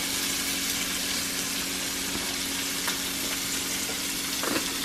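Sliced sausage sizzling steadily as it fries in a skillet, over a faint low hum, with a light tap near the end.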